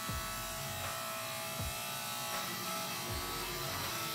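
Steady electric motor buzz of forge-shop machinery, a whine made of many fine steady tones. Music comes in faintly near the end.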